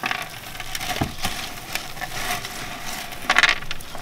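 Hands crumbling and pulling apart a root ball of potting medium around aglaonema roots: an irregular crackling and crunching of the fibrous medium and roots, with a louder rustle about three quarters in.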